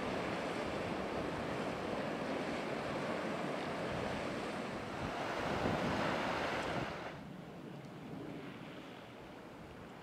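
Sea surf washing over rocks at the foot of the cliffs, a steady rushing with wind on the microphone. The surf swells just after the middle, then drops to a softer wash at about 7 s.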